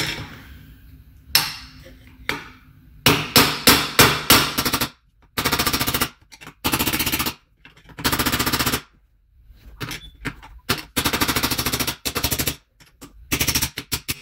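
Hammer blows on a steel ratchet extension used as a drift to knock a mid bottom bracket bearing out of a BMX frame, metal on metal. A few single strikes, then rapid runs of blows, each run lasting about a second, with short pauses between.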